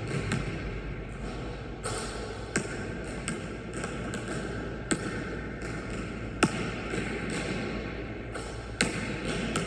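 Basketball bouncing on a gym floor and knocking against the hoop as a lone player shoots around: sharp, irregularly spaced knocks, about one a second.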